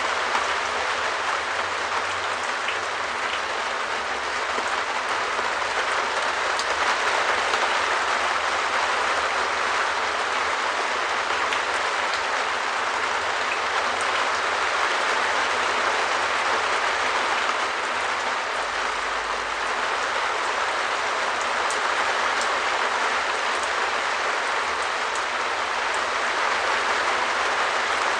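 Steady rain falling on a shed roof: a dense, even wash of drops with the odd sharper single drop standing out.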